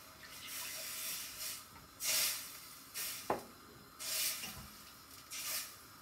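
Hot fried masala in a steel kadhai sizzling and hissing in short bursts, about five times, as water is added to it a little at a time to make the gravy. A single sharp clink a little after three seconds.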